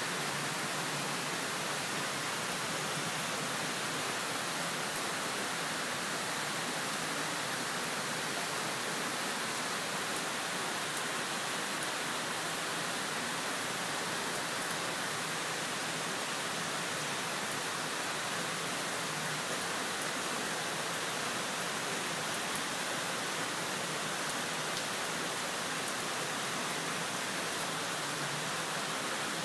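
Heavy rain falling steadily, an even hiss that does not change, with faint scattered ticks of drops landing close by.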